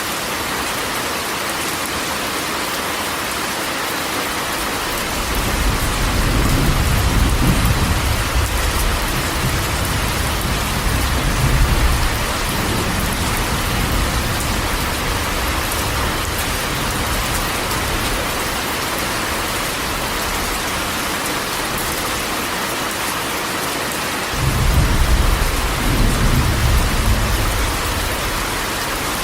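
Steady rain falling on a corrugated metal roof, with two low rolls of thunder: one starting about five seconds in and lasting several seconds, another near the end.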